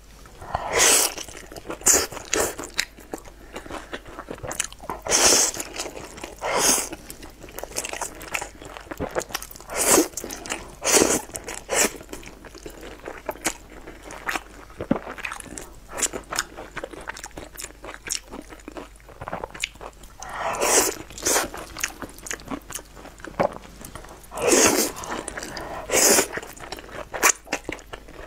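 Close-miked eating of wide, flat, sauce-coated noodles: wet chewing and lip smacking, broken every few seconds by a loud slurp that lasts up to about a second as a mouthful is drawn in.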